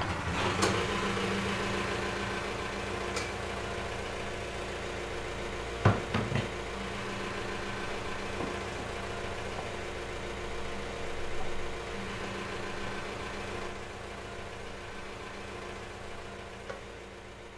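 Stationary engine catching and settling into a steady idle. Two sharp knocks come about six seconds in.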